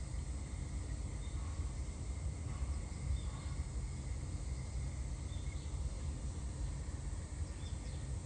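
Steady outdoor background noise, mostly a low rumble, with a few faint short high chirps scattered through it.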